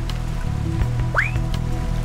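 Background music with a steady low bass line, and a short rising electronic tone about a second in.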